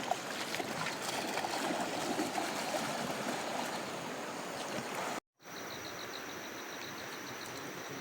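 River water flowing, a steady rushing noise. It cuts out abruptly about five seconds in and comes back a moment later with a faint rapid ticking over it.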